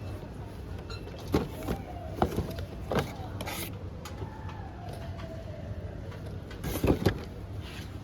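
A series of sharp knocks and clicks with a brief scrape over a steady low hum, ending in a louder double knock near the end, like kitchen items being handled and set down.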